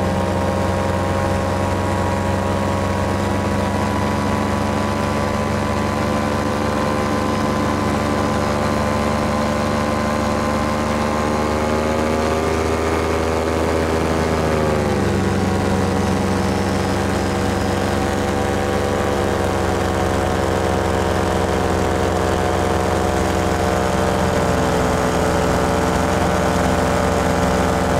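Paramotor engine and propeller running steadily in flight, a loud drone. About halfway through the pitch glides down as the throttle is eased back, then holds at a slightly lower pitch with small shifts later on.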